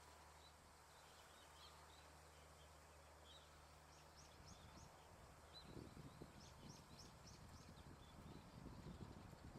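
Faint outdoor ambience with small birds giving short, high chirps, some in quick little series. A low rumbling comes in about halfway through.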